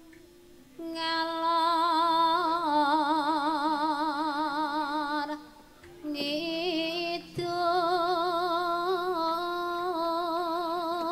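A Javanese sinden (female gamelan singer) sings a slow solo melody into a microphone, holding long notes with a wide, even vibrato. She breaks off for a breath about five seconds in, then goes on with another long held phrase.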